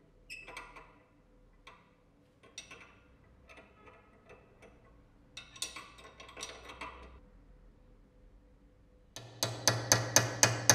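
Steel combination wrench clinking against a rusty nut and the steel jaws of a bench vise as it is fitted and turned, in short clusters of metallic clicks. Near the end, a quick run of hammer blows on a steel punch, about four a second.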